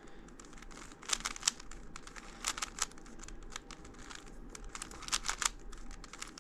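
Plastic Rubik's Cube layers being turned by hand: irregular runs of quick clicks and clacks.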